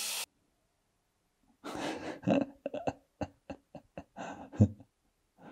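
A man laughing: a run of short, breathy bursts at about four a second, ending in a louder burst, then one more short laugh near the end.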